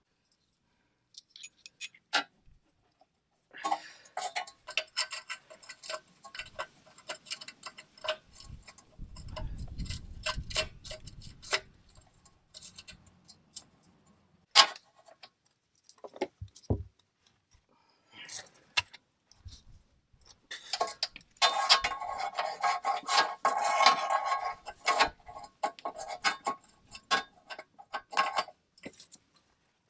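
Ratchet clicking and metal tools clinking in two long bouts while working the bolt of a rusty exhaust clamp, with scattered single clicks and knocks between them.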